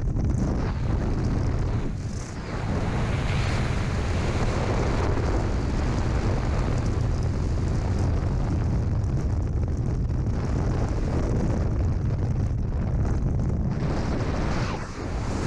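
Freefall airflow rushing over the skydiver's camera microphone: loud, steady wind buffeting, heaviest in the low end, easing briefly about two seconds in and again near the end.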